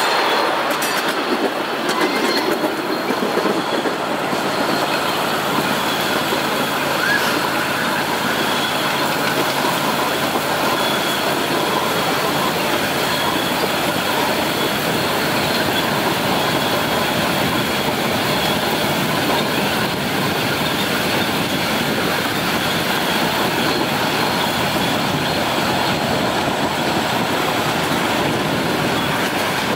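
Miniature ride-on railway train rolling along its small-gauge track, heard from one of the riding cars: a steady rolling noise from the wheels on the rails.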